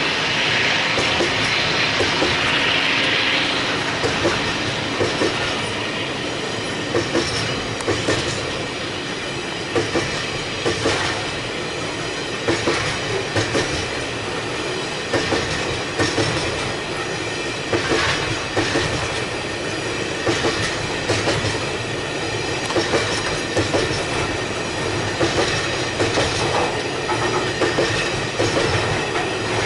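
Container wagons of a long freight train rolling past. The wheels clack in repeated groups over the rail joints, over a steady rumble, with a high squeal in the first few seconds.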